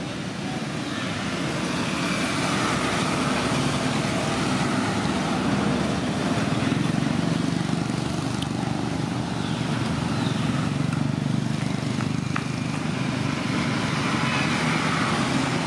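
Road traffic passing: a steady engine noise of cars and motorbikes that swells about a second in and stays up.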